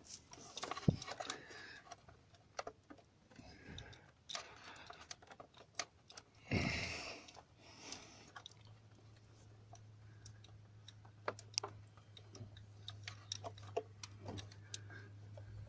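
Faint, scattered clicks and taps of hands working a hose and its plastic clips in a car's engine bay, with one louder brief scrape about six and a half seconds in. A low steady hum starts about halfway through.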